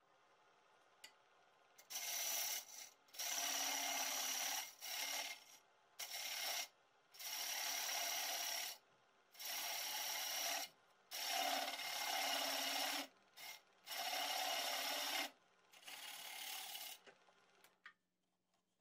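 A tool rasping against a box elder bowl blank spinning on a wood lathe, in about ten passes of one to two seconds each with short pauses between them; the last pass is quieter.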